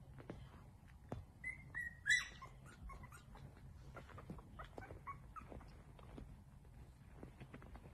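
Newborn Yorkshire terrier puppies squeaking and whimpering, high-pitched and short. The loudest cries come about two seconds in, softer squeaks follow a couple of seconds later, and small clicks and rustles run between them as the puppies nurse.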